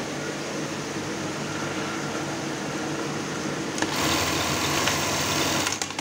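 Brother 814 industrial buttonhole sewing machine, its motor running steadily, then about four seconds in it sews a buttonhole cycle. That stretch lasts about two seconds, louder and busier, and ends in a few sharp clicks as the machine stops. This is a test buttonhole after adjusting the top-and-bottom bartack setting.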